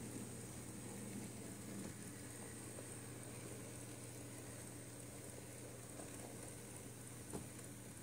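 Faint steady hiss and low hum from an H0e scale model narrow-gauge steam locomotive running slowly along its track, with one small click about seven seconds in.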